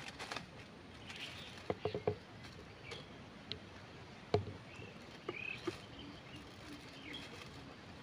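A few sharp clicks and crackles of dry palm fronds and nest sticks shifting as heron chicks move about. The loudest comes about four seconds in, with faint short high chirps now and then.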